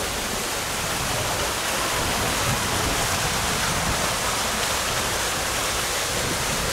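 Steady, even rushing of water, with no breaks or separate strokes.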